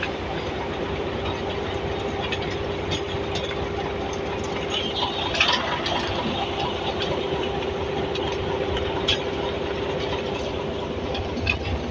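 Heavy earthmoving machinery with its diesel engine running steadily, under scattered metallic clanks and knocks.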